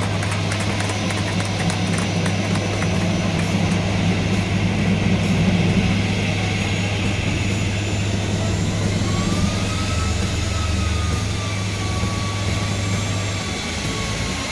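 Steady drone of an Airbus airliner's jet engines heard from inside the cabin while taxiing, with a low hum under it. A faint whine rises and wavers from about nine seconds in.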